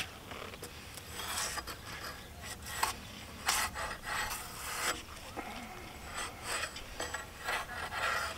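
Hand debarking tool scraping bark off a robinia log: a series of short, rasping strokes at an uneven pace.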